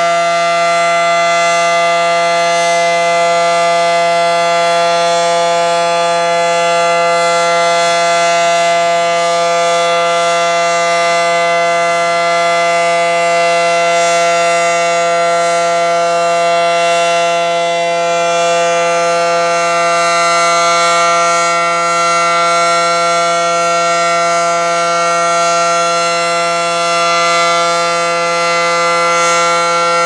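Federal Signal SD-10A outdoor warning siren sounding loudly during a test, holding a steady, unchanging pitch.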